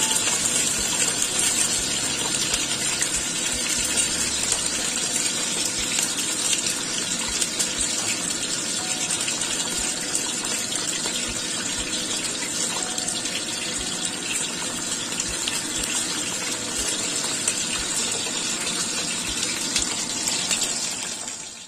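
Bell pepper pieces stuffed with minced fish frying in hot oil in a wok: a steady sizzle with fine crackling.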